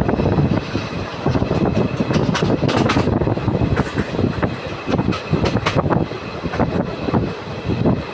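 Passenger train running on the ghat up-gradient, heard from inside a second-class coach: a continuous rumble of wheels on rails with frequent irregular clanks and knocks.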